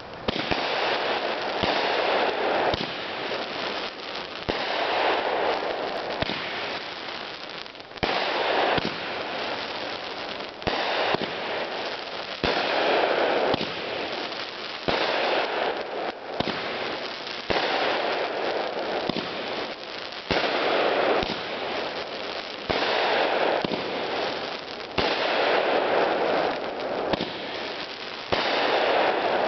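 Fire Hawk 'Fiesta' consumer firework going off: a continuous hiss with many sharp crackling pops, swelling in surges every couple of seconds.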